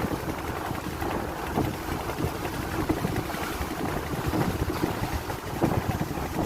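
Steady rumble and noise aboard a passenger fast ferry, with wind on the microphone.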